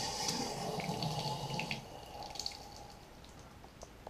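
Water running from a newly installed bathroom faucet into the sink basin, heavier for the first two seconds and then easing off to a thin stream.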